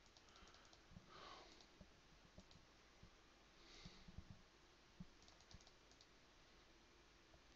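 Near silence, with faint scattered clicks from a computer keyboard and mouse, a small cluster of them about five seconds in.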